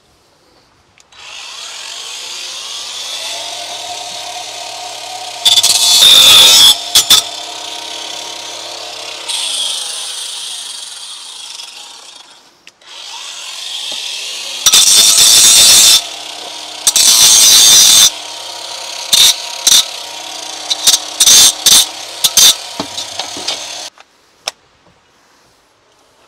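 Electric power saw cutting wood, run twice for about ten seconds each. Its motor whines steadily and winds down at the end of each run, and several loud cutting passes, the longest about a second, break in while the blade bites into the board.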